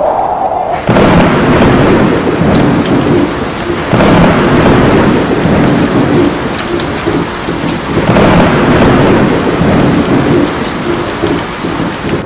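Thunderstorm sound effect: steady heavy rain with three thunder crashes about four seconds apart, each starting suddenly and rumbling away.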